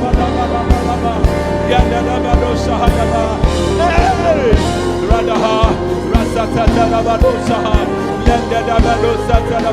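Church worship music with a steady beat under sustained chords, and a gliding melodic line partway through.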